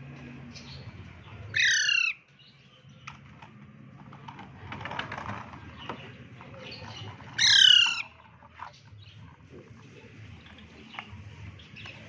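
A green parakeet squawking twice, two loud harsh calls of about half a second each, some six seconds apart, with a few faint ticks and rustles between them.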